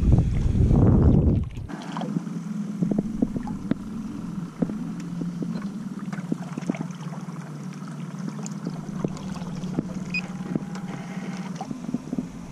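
Wind buffeting the microphone, cutting off abruptly about a second and a half in; then a steady low drone from a small boat's motor, with light scattered clicks.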